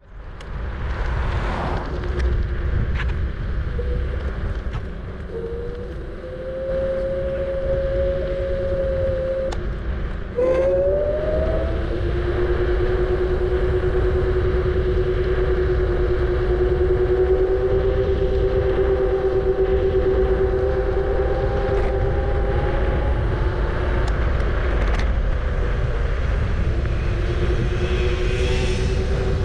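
Kugoo G-Booster electric scooter's hub motors whining in steady tones that slowly rise and fall in pitch with speed, over a continuous wind rumble on the microphone. About ten seconds in, the whine breaks off briefly, then comes back louder and climbs.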